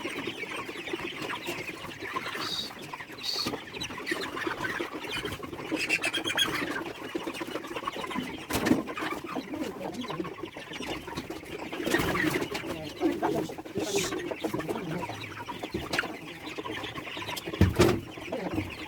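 A flock of chickens clucking, with scattered knocks throughout and a louder thump near the end.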